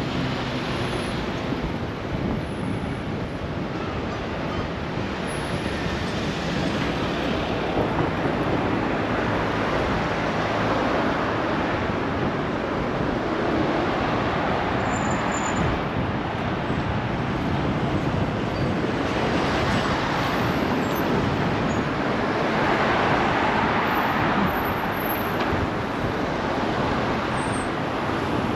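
City road traffic: a steady rush of motor vehicles and road noise, with vehicles passing closer and louder twice in the second half.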